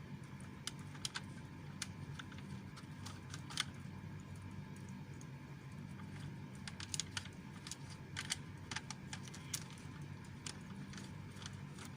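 Orange stray cat eating, with irregular sharp crunching clicks of chewing a few times a second over a steady low hum.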